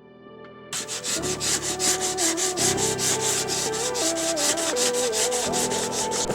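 Background music with a quick, even scratchy beat and a stepping melody, starting about a second in.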